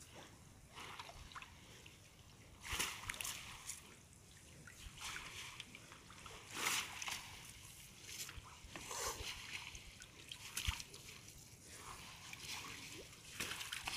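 Irregular splashes and sloshing of shallow water as a fishing net is hauled in by hand, with short bursts every second or two.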